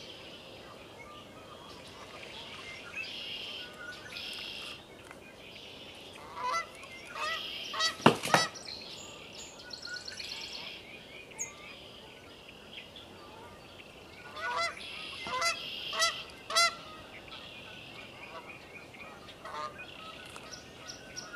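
Canada geese honking. The calls come in clusters, the loudest about eight seconds in and another run about fifteen seconds in, over a steady high chatter.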